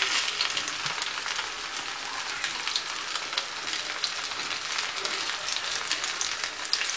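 Breaded cabbage schnitzels frying in hot oil in a pan: a steady sizzle dotted with many small crackling pops.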